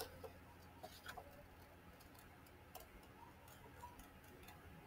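Scissors snipping through painted paper: a few faint, irregular clicks of the blades closing.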